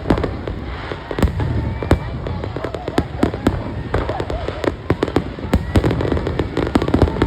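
Aerial fireworks going off in quick succession: many sharp bangs and crackles, with a dense rumble between them.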